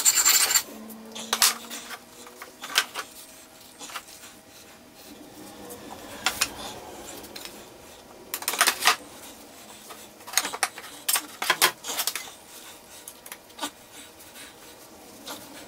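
Hand-sanding rasp on a steel axe head stops about half a second in. After that come scattered light metallic clinks and knocks as the axe head is taken out of a bench vise and handled.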